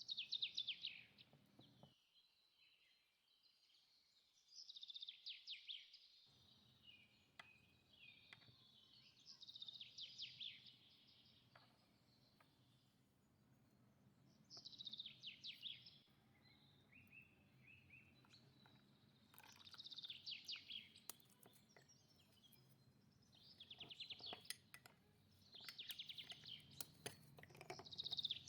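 A small songbird singing: short, rapid, high trills, repeated about every four to five seconds and coming closer together near the end.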